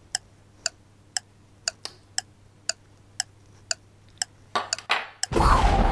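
Clock ticking, about two ticks a second. A louder, fuller sound cuts in near the end.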